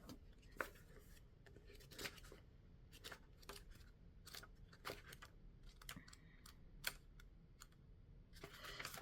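Faint paper handling: light scattered clicks and soft rustles as tarot cards and guidebook pages are handled.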